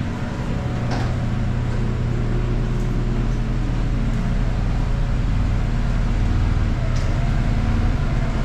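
Can-Am Defender side-by-side's engine running at low speed as the vehicle creeps closer, growing gradually louder.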